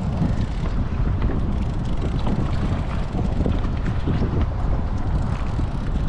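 Wind buffeting the microphone on open water: a steady low rumble.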